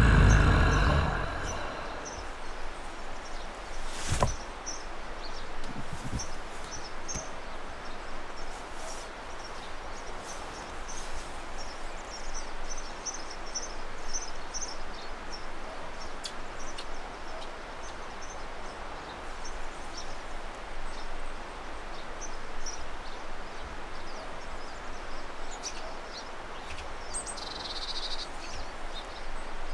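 Steady outdoor ambience, an even rushing hiss, with faint short high chirps now and then. A man's brief laugh is heard right at the start.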